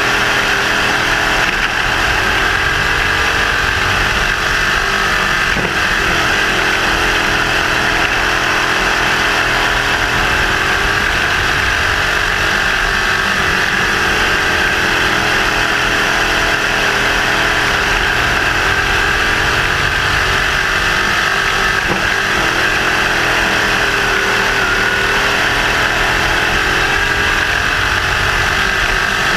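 Crate sprint car's GM 602 crate small-block V8, heard from on board, running hard at race speed on a dirt oval. It is loud and steady, its pitch dipping and rising a little now and then.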